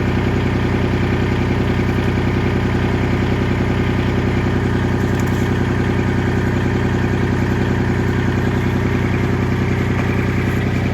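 An engine idling at a steady, unchanging speed.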